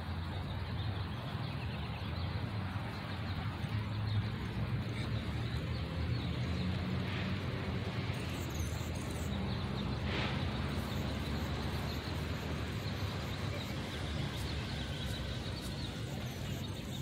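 Outdoor park ambience: a steady low rumble and hiss with no distinct events, apart from a faint brief sound about ten seconds in.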